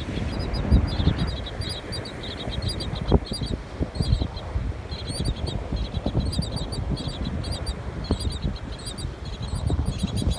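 A bird calling insistently in quick runs of short, high chirps, again and again, over a steady low rumble.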